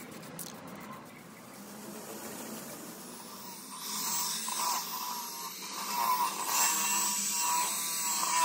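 A hand-held die grinder with a small abrasive wheel comes in about four seconds in, whining at high speed as it grinds rust off a steel cover. It gets louder near the end as the wheel bears on the metal.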